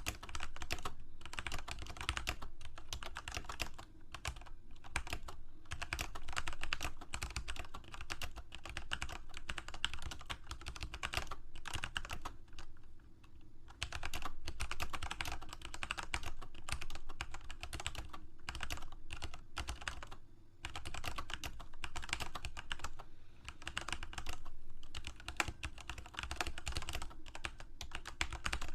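Typing on a computer keyboard: rapid runs of key clicks with short pauses, the longest about twelve seconds in.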